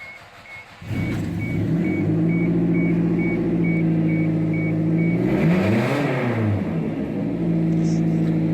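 Toyota Celica ST162's four-cylinder engine starting about a second in and idling, with one short rev around the middle before it settles back to idle. Its exhaust is pretty damn loud and still needs fixing; the engine runs properly again on a new timing belt. A warning chime beeps steadily about twice a second through the first half.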